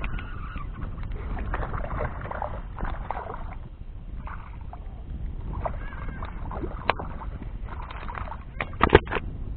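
Steady wind rumble on the microphone, with bursts of a baitcasting reel being handled and cranked. A few sharp clicks come near the end, the loudest about nine seconds in.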